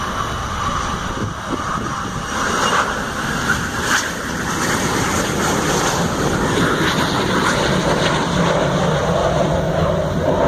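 Small business jet's engines running at takeoff power as it lifts off and climbs away, a steady roar that grows somewhat louder about halfway through.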